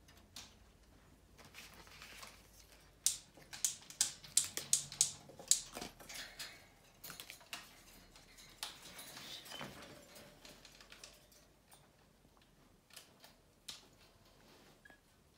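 Green-cheeked conures clicking and tapping at their toys and the cage: a run of irregular, sharp taps, thickest a few seconds in, then scattered taps.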